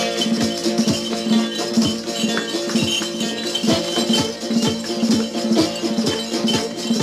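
Music with a shaker-like rattle and a steady beat of short low strokes, about two or three a second, over held tones.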